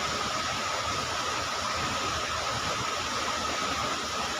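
Floodwater rushing down a small river, a steady even roar of water. A thin steady high tone runs over it.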